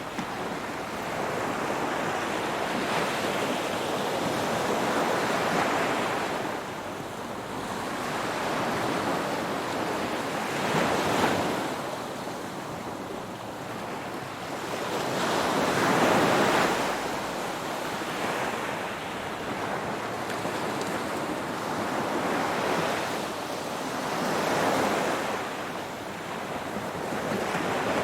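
Ocean waves washing onto the shore in slow, regular surges, each swelling to a rush and then ebbing, a new one every few seconds. Some wind noise on the microphone.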